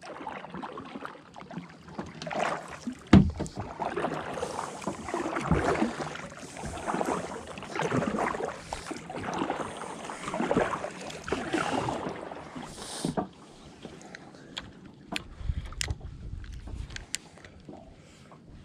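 Kayak paddling: a double-bladed paddle dipping and pulling through calm water, splashing and dripping at roughly one stroke a second, with a sharp knock about three seconds in. The strokes stop about thirteen seconds in, leaving a few faint clicks.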